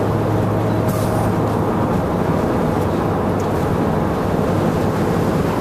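Steady noise of a moving vehicle: a constant rumble and hiss with a low hum underneath, unbroken throughout.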